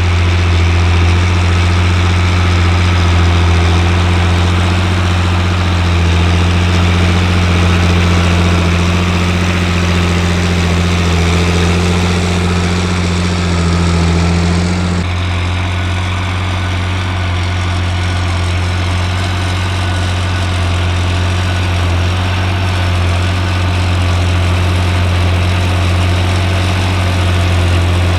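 John Deere 8300 tractor's six-cylinder diesel engine running steadily at constant speed while pulling a seven-furrow plough, a low even drone; about halfway through the sound changes abruptly, the higher part dropping away.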